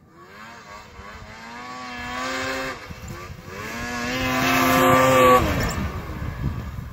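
Two-stroke 800cc snowmobile on its stock exhaust, ridden through deep powder: the engine revs up, eases off briefly near three seconds, then revs up again to its loudest about five seconds in and drops away as the sled goes by. It sounds quiet for such a sled, like a sewing machine.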